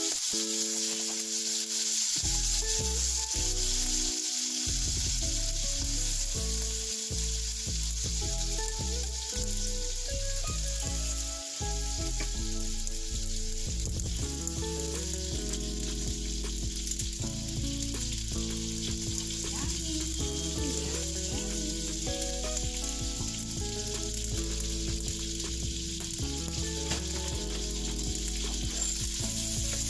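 Sweet pork longanisa sausages sizzling steadily as they fry in a pan, turned now and then with a utensil. Soft background music plays underneath.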